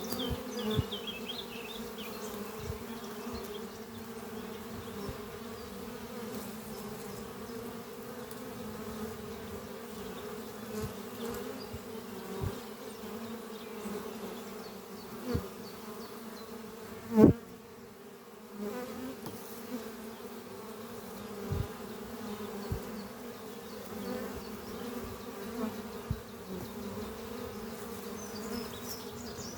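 Honeybees flying at the entrance of their hive, a steady hum of many bees with single bees buzzing louder close by every few seconds, the loudest about halfway through.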